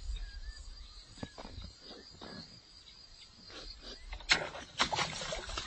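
Faint open-air ambience of a rice-paddy swamp: a steady high insect hum over low wind rumble on the microphone, with small scattered ticks. About four seconds in comes a sudden burst of rustling and knocking handling noise as the fishing rod is lifted.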